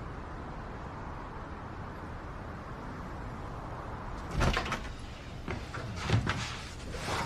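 Steady background hiss, then from about four seconds in a few soft knocks and rustles, the kind of handling sounds a door makes.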